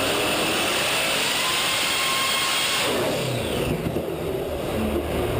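Alcohol-fuelled engine running hard. About three seconds in its revs fall away, and it settles into a lower, steady run.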